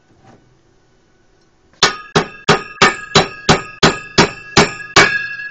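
Hammer blows on a drawn-arc stud-welded metal cooling fin on a gear, bending it over in a bend test of the weld. About ten ringing metal strikes at roughly three a second, starting nearly two seconds in, and the fin keeps ringing after the last blow. The weld holds: a pretty strong weld.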